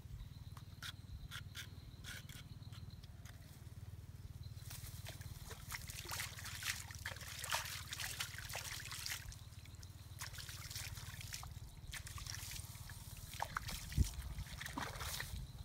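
Shallow paddy water trickling and splashing as a freshly caught fish is handled at the water's edge, with many short clicks and crackles, thickest in the middle, and a sharp knock near the end. A steady low rumble runs underneath.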